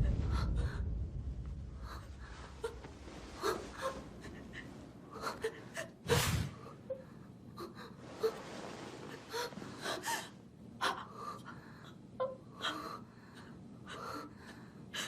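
A person's quiet, scattered short breaths and gasps, as music fades out over the first couple of seconds.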